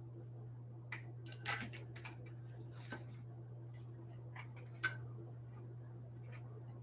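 Light clicks and taps of rigid plastic card holders being handled and set down, a few irregular ticks with the sharpest near five seconds in, over a steady low hum.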